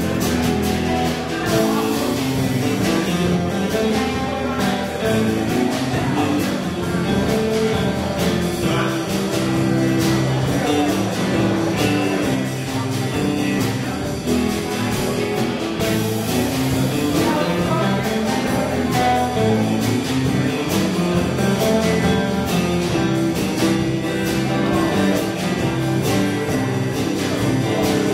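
Live rock-style band playing: electric guitars and bass over a steady drum-kit beat.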